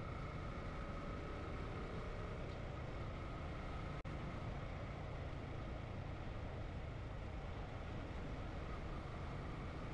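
Motorcycle riding at steady cruising speed: engine running evenly under wind rushing over a helmet-mounted microphone. The sound cuts out for a moment about four seconds in.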